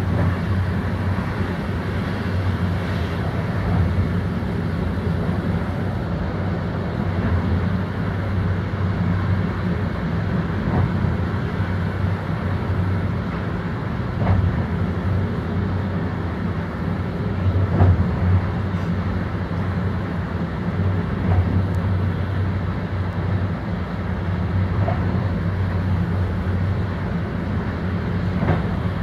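Inside an InterCity passenger coach running at speed: a steady low rumble of wheels on rails, with a few faint clicks at irregular intervals.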